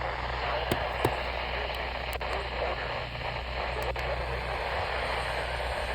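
Weather radio receiver hissing with static on dead air between broadcast messages, over a low hum, with a few sharp clicks about a second in and again near four seconds.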